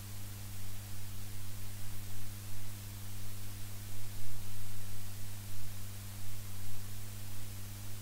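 Steady electrical hum in several even tones under a constant hiss: the background noise of the recording, with no speech over it.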